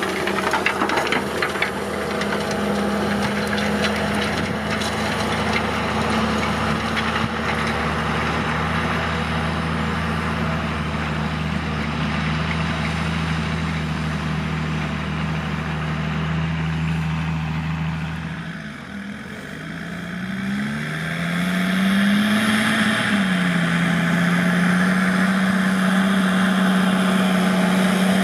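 JCB Fastrac 3220 tractor's diesel engine running steadily under load while pulling a harrow through ploughed ground. About two-thirds of the way through, the sound dips briefly and the engine note falls, then rises and settles steady and louder.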